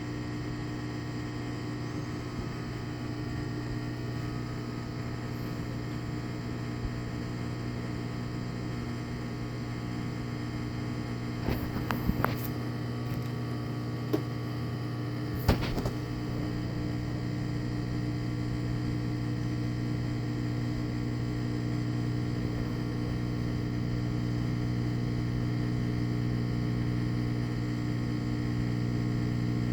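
Washing machine on its drain and spin cycle, its newly replaced drain pump running and pumping the water out: a steady machine hum that grows slightly louder over the second half. A few sharp clicks and a knock come about halfway through.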